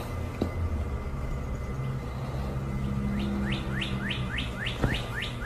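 A bird chirping in a run of quick rising notes, about four a second, starting about halfway through, over a low steady hum.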